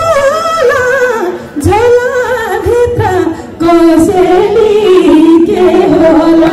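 A woman singing a song with music, holding long notes that waver in pitch, with short breaks between phrases.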